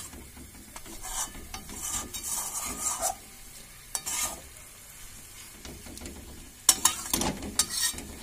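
A spatula stirring and scraping masala-coated chicken pieces around a pan while the masala sizzles, with a cluster of sharp scrapes and knocks against the pan near the end.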